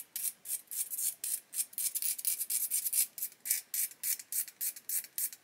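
Small plastic model part being scraped by hand with a blade: quick, even rasping strokes, about four a second, as material is shaved off at an angle.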